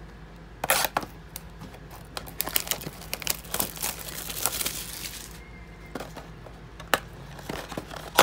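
Clear plastic shrink wrap being torn and peeled off a cardboard trading-card box, crinkling and crackling with sharp snaps. The crackling is densest in the middle, then thins out to a few single clicks near the end.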